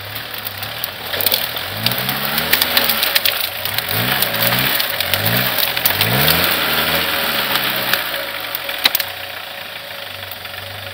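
Homemade 4x4 ATV's 1.6-litre diesel engine revving up and down again and again as the machine crawls over brush and fallen branches, with many sharp cracks of branches snapping under the tyres. About eight seconds in the engine drops back to a lower, steadier run.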